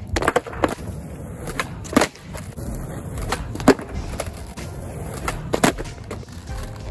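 Skateboard tricks on concrete: several sharp clacks of the deck's tail popping and the board landing, the loudest about two, three and a half and five and a half seconds in, over the low rumble of the wheels rolling.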